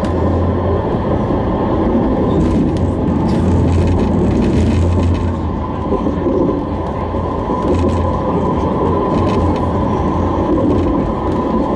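Modern tram running along its rails, heard from inside the car: a steady rumble with a low hum and a faint steady whine.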